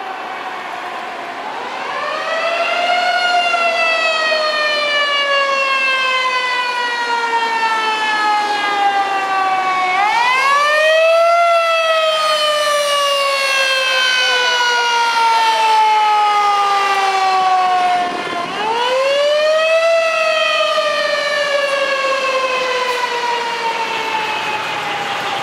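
Fire engine siren wailing three times: each wail rises quickly, then falls slowly over about eight seconds before starting again.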